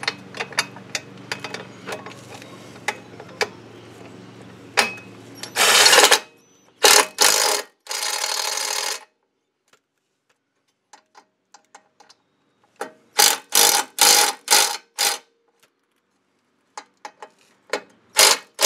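Ryobi cordless impact driver running a bolt into an aluminum A-arm guard: light ticks at first, then a few seconds of driving, then a row of short bursts as the bolt is snugged down tight.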